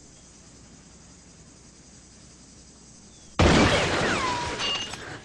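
Quiet room tone, then a little over three seconds in a sudden loud crash with a falling whine-like tone that settles and fades over about a second and a half.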